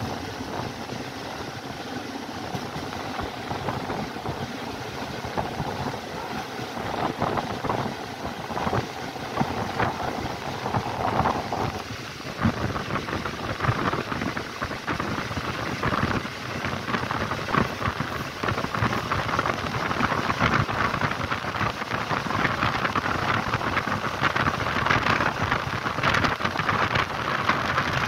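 Passenger train running through a station's track yard: steady rumble and hiss of wheels on rails with dense rapid clatter, heard at a carriage window. It grows louder from about halfway through.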